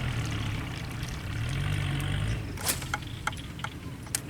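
A small boat's motor running steadily, its pitch rising briefly about halfway through and then easing back down. Several sharp clicks or taps follow near the end.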